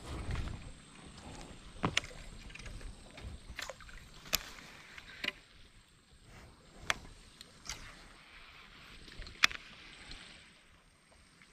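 Small fishing boat on the water, with scattered sharp knocks and taps on board over a faint wash; the loudest knock comes about nine seconds in.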